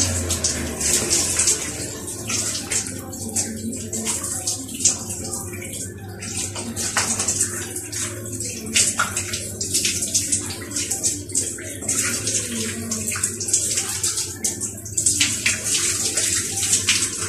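Overhead shower spray running, water hissing and splashing onto a person and the floor of a small shower stall.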